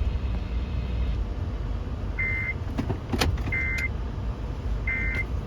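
Three short, buzzy data bursts of an Emergency Alert System end-of-message signal, each about a third of a second long and spaced a little over a second apart, marking the close of the alert. A steady low rumble and a few sharp clicks run underneath.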